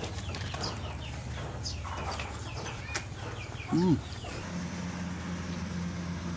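Repeated short, high chirps over a steady low hum. About four seconds in there is one loud, short hummed 'mmm' from a man eating, rising then falling in pitch, and then a steady low tone.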